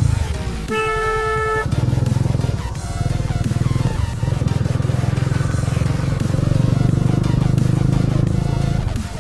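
Bajaj Avenger cruiser's single-cylinder engine through a custom exhaust, running on the road with a deep, pulsing exhaust note. A short steady tone sounds briefly about a second in.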